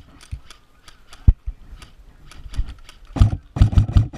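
Airsoft gun firing in rapid full-auto bursts, each burst a fast run of clicks with a low thump. There are a few scattered shots first, then two long bursts near the end.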